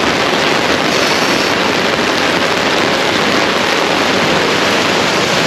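Heavy rain falling on an umbrella held just over the microphone and onto the wet road around it, a loud steady hiss.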